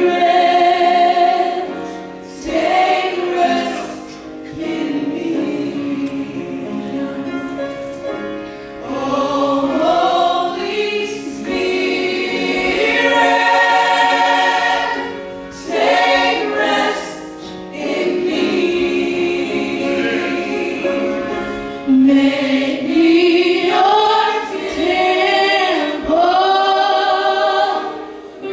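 Church choir singing a gospel song, sustained phrases of several voices with short breaks between them.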